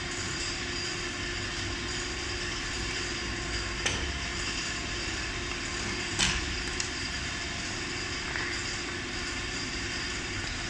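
Steady background machinery hum with a low tone. Two short knocks about four and six seconds in come from handling the scooter's hub-motor wheel.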